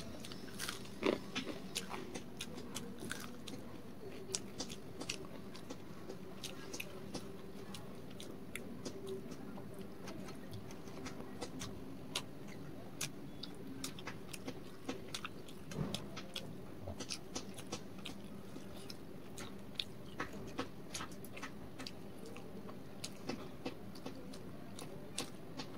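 Close-up chewing of a fried pakora, a hot dalle chilli fritter: irregular crisp crunches and wet mouth clicks over a faint steady hum.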